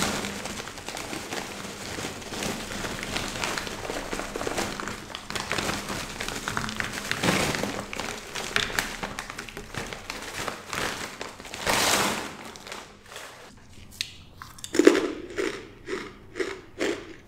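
Crinkling foil snack bag of Takis rolled tortilla chips being handled and tipped out, the chips spilling onto a wooden cutting board, with a louder rustle about twelve seconds in. Near the end, a run of short knocks.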